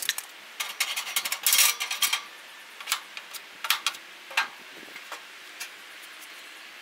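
A metal grill tool scraping and clinking against the cooking grate of a gas grill, followed by a series of single sharp clicks, about one every half second to second, as the burner control knobs are worked.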